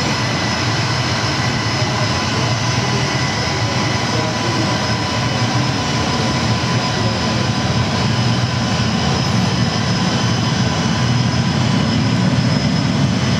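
Recorded jet-engine sound played over a model airport's loudspeakers as a model Boeing 747 taxis: a steady engine whine with several high tones over a rumble that grows stronger about halfway through.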